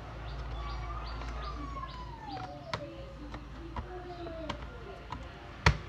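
Sharp plastic clicks and taps from a laptop being put back together by hand, the loudest click near the end, over a low steady hum. A faint pitched call slides downward in the background about a second in, with a shorter one later.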